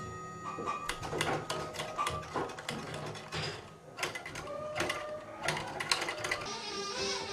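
Metal tubes hung on a homemade wooden drum instrument being struck and jostled, giving irregular clinks and clatter with short ringing tones.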